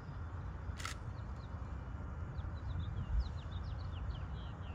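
Small birds chirping in quick, short calls, most of them in the second half, over a steady low rumble. A single sharp click comes a little under a second in.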